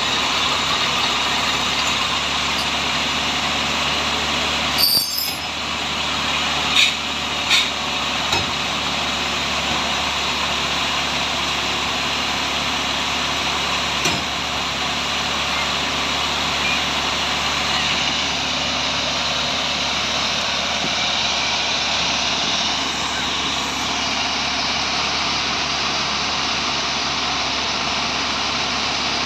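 Heavy crane tow truck's engine running steadily. There is a short hiss about five seconds in, and a few sharp clicks or knocks follow over the next several seconds.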